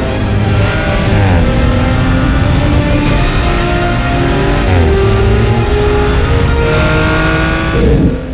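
Audi RS 5 Coupé's twin-turbo V6 accelerating hard through the gears: the engine note climbs, then drops sharply at each of three upshifts, about a second in, near the middle and near the end.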